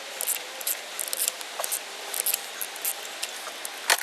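Irregular metallic scraping and clicking of hand tools working at a stuck diesel fuel injector, with one sharper click near the end.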